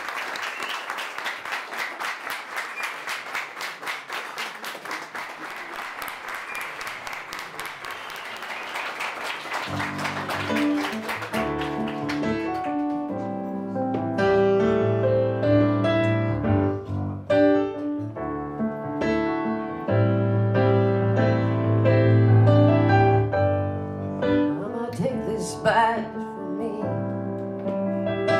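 An audience claps for the first ten seconds or so. About ten seconds in a piano starts playing an intro with a steady bass line under chords, and it carries on after the clapping dies away.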